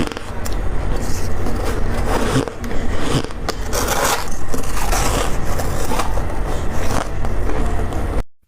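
Close-miked crunching and scraping of ice being bitten and chewed, a dense run of crackles and crunches over a steady low hum. It cuts out abruptly just before the end.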